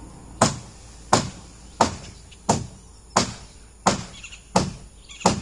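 A hammer driving a nail into a wooden corral post or board: eight steady, sharp blows, about one every 0.7 seconds.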